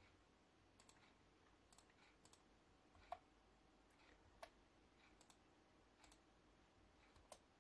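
Faint, scattered clicks of a computer mouse, about eight of them spread over several seconds, the loudest about three seconds in, over near-silent room tone.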